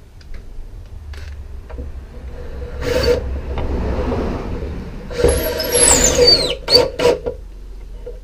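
Cordless drill driving screws into wood, in two runs of a second or so each, the second with a whine that shifts in pitch, followed by a couple of sharp knocks.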